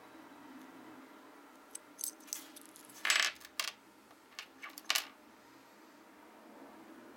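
Small metal pendant, chain and charm clinking and clacking as they are set down on a wooden desk: a string of sharp knocks, the loudest about three seconds in and the last near five seconds.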